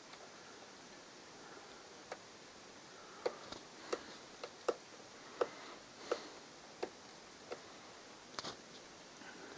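A series of light, sharp clicks, about one every two-thirds of a second, over faint room hiss.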